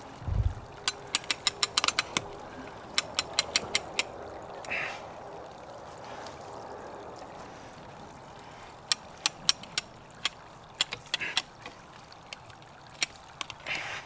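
Hand-cranked winch clicking its ratchet pawl in quick runs as the crank is turned, hauling in wire rope under the load of the long penstock pipe. The clicking pauses for several seconds in the middle. There is a dull thump just after the start.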